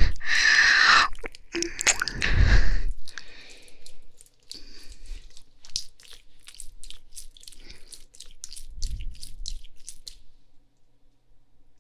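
Close-up ASMR mouth sounds: a loud breathy exhale for the first few seconds, then a run of short wet licking and kissing smacks from lips and tongue that stops about ten seconds in.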